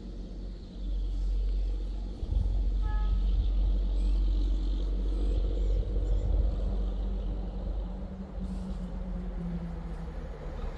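A train's steady low rumble and drone.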